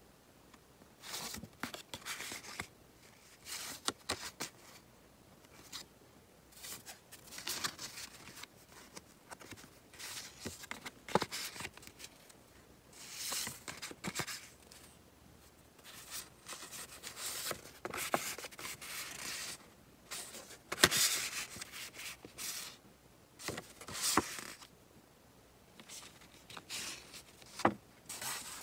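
Sheets of thick patterned scrapbook paper handled one after another: irregular rustling swishes as the sheets slide over each other and flex, with a few sharp clicks as edges tap or snap.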